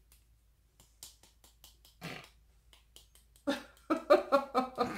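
Faint quick clicks and taps of a facial tapping massage. About three and a half seconds in, a person's voice breaks in loudly and covers them.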